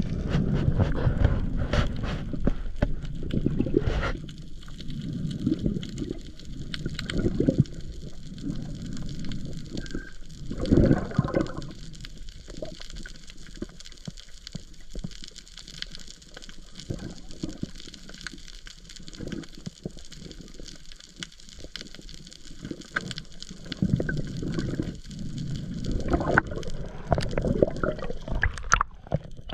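Water gurgling and sloshing, with scattered knocks; it swells louder about eleven seconds in and again near the end.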